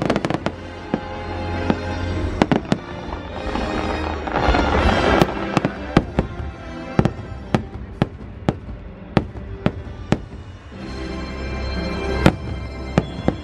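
Aerial fireworks shells bursting in a rapid, uneven string of sharp bangs, with a musical soundtrack playing underneath.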